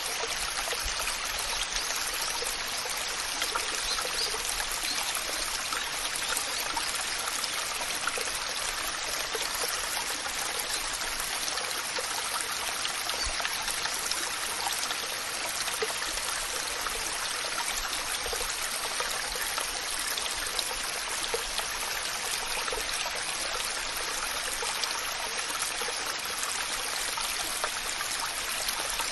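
Waterfall: water falling and splashing in a steady, even rush, with fine crackling splashes and no change throughout.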